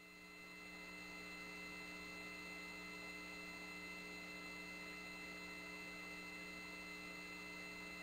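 Faint, steady electrical hum with several constant tones over a low hiss: the open launch-control audio loop between calls. It comes up over about the first second and then holds steady.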